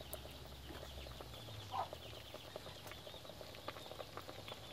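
Wild mushroom curry simmering in a blackened steel wok over a wood fire, a soft run of small pops and crackles under the freshly added phak waan leaves. A brief call is heard about two seconds in.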